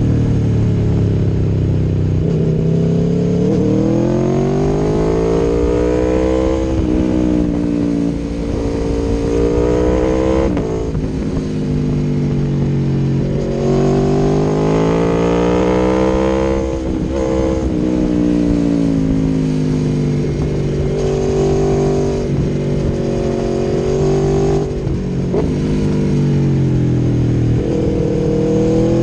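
Aprilia Tuono V4 1100 Factory's V4 engine through an Akrapovic exhaust, under acceleration: the pitch climbs three times in long pulls, dropping sharply at each upshift. It then runs at a steadier pitch with smaller rises and falls.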